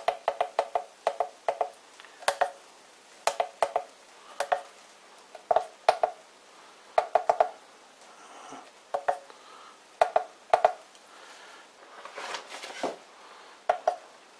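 Buttons on a variable frequency drive's keypad clicking under a gloved finger as a parameter value is stepped and entered. The clicks are short and sharp, some single and some in quick runs of two to four, with a soft rustle near the end.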